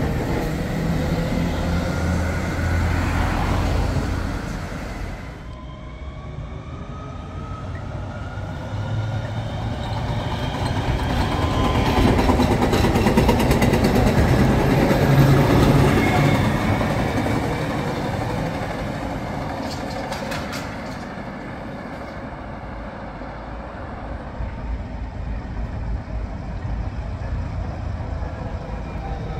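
Bombardier TVR rubber-tyred guided tram-bus passing by, its electric traction drive whining in rising and falling tones over the rumble of its tyres and street traffic. Loudest about halfway through as a car set passes close.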